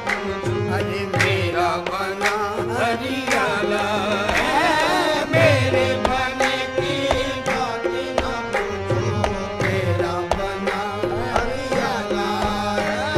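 A devotional song: a voice singing long, wavering melodic lines over a steady tabla beat.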